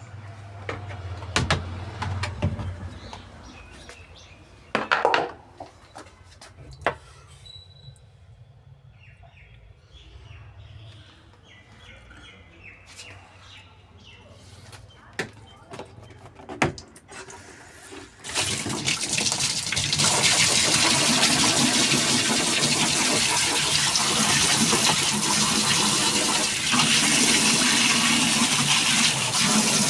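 A few scattered clicks and knocks, then about eighteen seconds in, water starts rushing into the washing machine tub, loud and steady.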